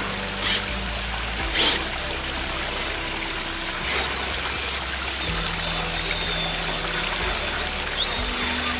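Shallow creek water trickling and running over rock ledges, with background music of held low chords playing along. A few short, louder noises stand out above the water.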